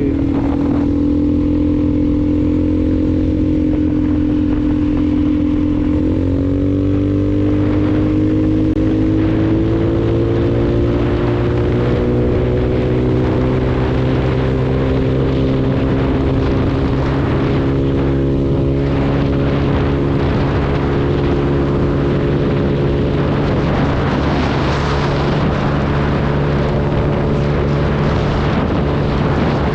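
Motor scooter engine with a new aftermarket exhaust, running under way. Its steady note steps up about six seconds in, then climbs slowly and holds at a cruise, with rushing wind and road noise building in the second half.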